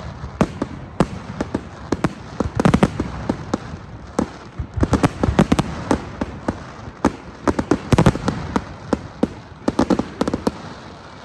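Fireworks finale: a rapid barrage of bangs and crackles from exploding shells, coming in dense clusters several times.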